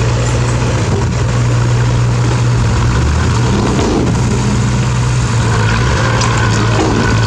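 Bulldozer's diesel engine running steadily under load, its note shifting briefly a little past halfway through.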